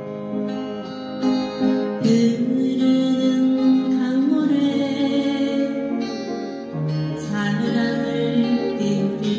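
Upright piano played by ear: a melody over sustained chords, with the notes changing every second or so.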